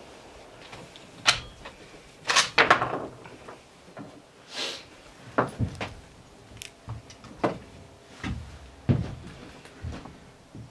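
Scattered sharp clicks and knocks, about a dozen over ten seconds, with a quick cluster of several about two and a half seconds in.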